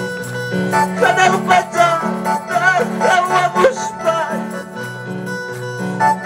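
Live amplified worship music: an electronic keyboard playing a stepping bass line and a bending melody over a steady beat.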